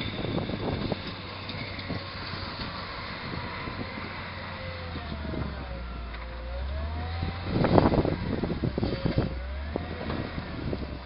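Volvo wheel loader's diesel engine running under load as it pushes rubble with its bucket. The engine hum grows stronger about halfway through, with a faint wavering whine over it. Two loud rushes of noise come near the end.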